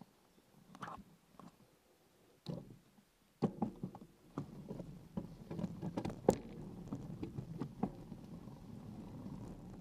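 Bicycle riding over a rutted dirt forest track: tyre noise and the bike rattling over bumps, with many sharp clicks and knocks. Only a few isolated clicks for the first three and a half seconds, then a sudden steady rumble.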